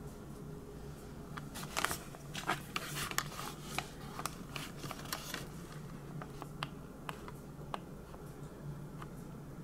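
Scattered light clicks and taps from hands working silicone caulk along a shower water dam, over a steady low hum.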